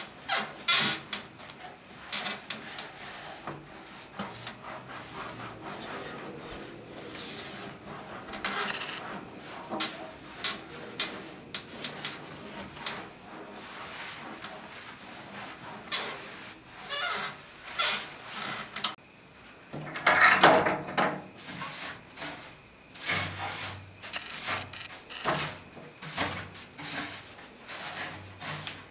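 A cloth rubbing and wiping a wooden window frame in short, irregular strokes, with a louder stretch of wiping about twenty seconds in.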